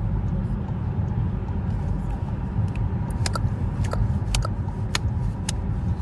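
Road and engine noise inside a moving car's cabin: a steady low rumble. From about three seconds in, a run of short sharp clicks comes roughly twice a second.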